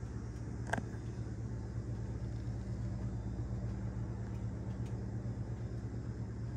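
1993 Nissan 300ZX's V6 engine idling with a steady low hum. A single sharp click comes just under a second in.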